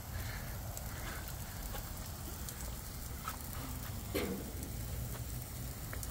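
Low, steady outdoor background rumble with faint crackling and a few light clicks, and one short louder scrape or rub about four seconds in.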